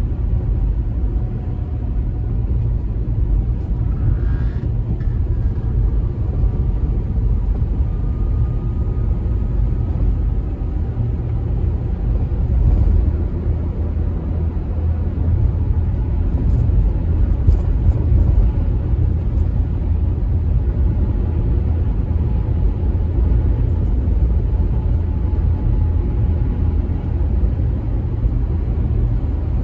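Steady low road and tyre rumble heard from inside a car cabin cruising on a toll road.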